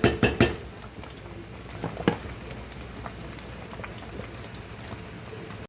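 Pot of palava sauce bubbling with a steady hiss. A quick run of sharp knocks, like a spoon striking the pot, comes at the very start, and a single knock about two seconds in.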